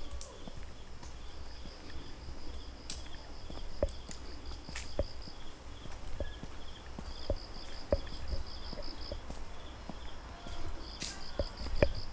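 Footsteps on a hiking trail, knocking about once a second, with insects chirping in long, high, pulsing trills that start and stop.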